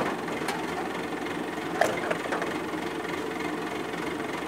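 The diesel engine of an ACE pick-and-carry crane running steadily, with a sharp knock just under two seconds in.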